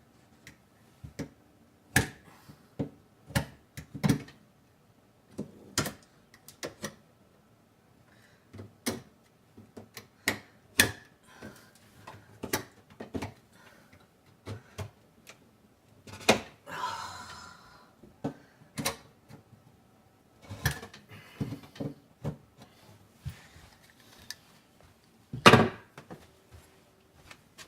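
A knife being worked around the small wood molding of a door's glass pane, giving irregular clicks, taps and light knocks as the blade goes into the wood. There is a short scrape a little past halfway and a louder knock near the end.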